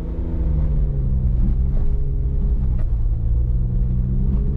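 Car engine and road rumble heard from inside the cabin while driving: a steady low drone whose pitch eases slightly about halfway through and then climbs a little again.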